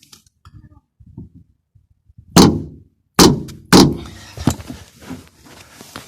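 Hammer blows knocking a new door suspension strut onto its mount in a car door: three loud, sharp knocks about half a second apart, then a few lighter taps and small clicks.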